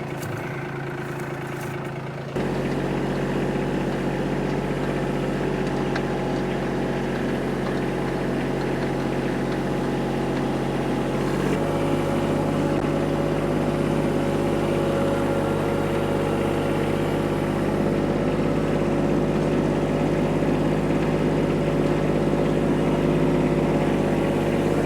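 Kubota tractor engine running steadily, louder from a couple of seconds in, with its note rising slightly about halfway through.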